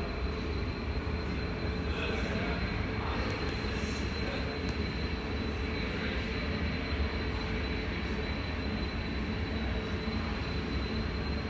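Steady low rumble and hiss of a moving vehicle, with a thin steady high whine over it.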